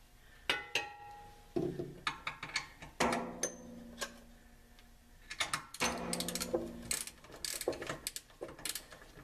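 Ratchet wrench clicking in short runs as the bolts of an air helper spring mount are tightened, mixed with clinks of metal tools against the axle bracket.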